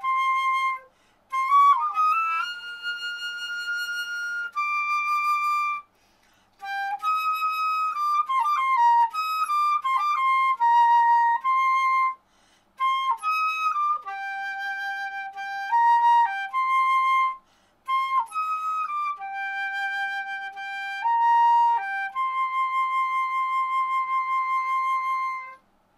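Solo concert flute playing a slow melody in the upper register, in several phrases broken by short pauses for breath and ending on a long held note. This is high-register tone practice, and the player judges the high notes still too piercing rather than full.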